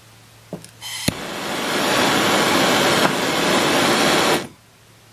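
Handheld gas torch being lit and run: a hiss of gas, a sharp igniter click just after a second in, then the flame burns with a steady rushing noise for about three seconds and shuts off suddenly. It is heating the soldered joint of the brass nozzle.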